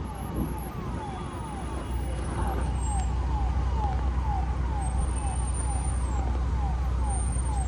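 A car's engine and road rumble, growing louder about two seconds in as the car gets going, with a siren-like alarm tone sweeping downward about twice a second throughout.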